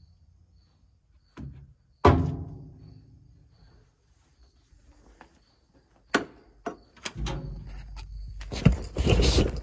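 A dull knock, then about two seconds in a loud metallic clank that rings briefly against the steel underside of a combine. From about seven seconds, clicks and a rough rumbling scrape as a mechanic's creeper rolls over the gritty concrete floor, growing loudest near the end.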